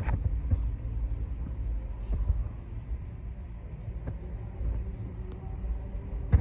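Low, steady background rumble of a large indoor hall, with a faint hum and a few light clicks and knocks.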